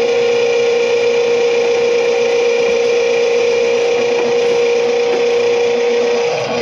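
Drain-cleaning machine running steadily with a constant loud hum, working a grease-clogged kitchen drain stack. The level dips briefly near the end.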